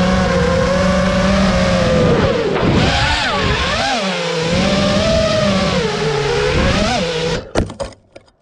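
FPV quadcopter's brushless motors whining, the pitch rising and falling as the throttle changes. About seven seconds in the sound cuts off with a few sharp knocks as the drone crashes and tumbles to the ground.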